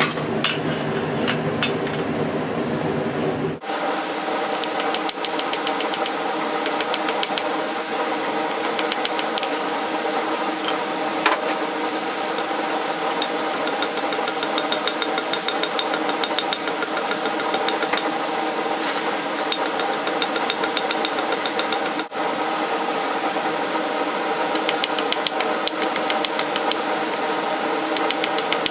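Hand hammer striking hot steel on an anvil in quick, even runs of blows, a few a second, with short pauses between the runs. A steady machine hum runs underneath, and the sound cuts off abruptly twice where the footage is edited.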